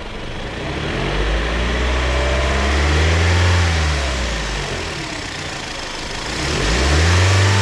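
Toyota Voxy engine revved with the accelerator: it rises, peaks about three and a half seconds in and falls back, then rises again near the end and is held. With the alternator replaced by a rebuilt unit, the abnormal noise seems to have stopped.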